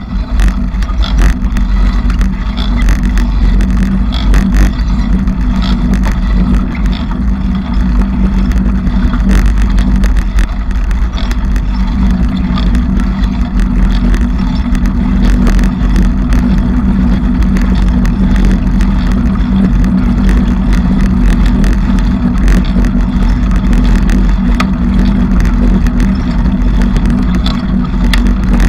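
Continuous riding noise of a bicycle in motion: a steady low rumble with many small rattles and clicks from the bike.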